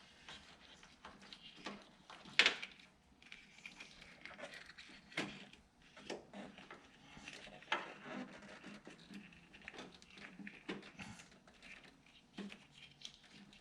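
Hands pushing plastic wiring connectors through a rubber headlight boot: scattered small clicks, knocks and rubbing, with one sharper click about two seconds in.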